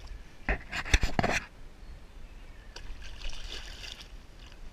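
Striped bass thrashing and splashing at the surface as it is released beside a kayak. A quick run of sharp slaps and splashes comes about half a second in, the loudest near one second, then softer splashing spray around three to four seconds in as the fish swims off.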